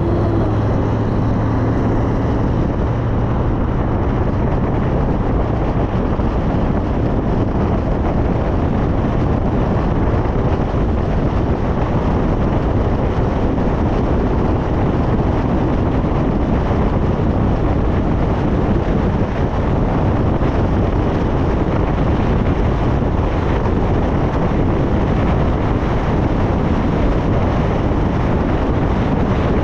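Steady wind rush and road noise from a car driving along a multi-lane road. A low hum is heard for the first few seconds and then fades into the noise.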